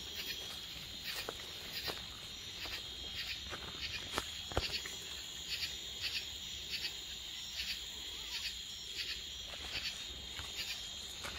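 Chorus of night insects: a steady high buzz with rhythmic chirping pulses about twice a second. Scattered footsteps and twig snaps in leaf litter sound over it, the sharpest snap about four and a half seconds in.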